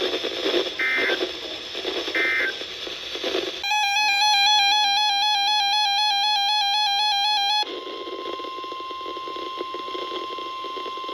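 Weather-radio emergency alert tones. After a few seconds of radio noise, a loud, harsh electronic attention tone sounds for about four seconds. It cuts straight to the single steady 1050 Hz NOAA Weather Radio warning tone, which announces a new warning message.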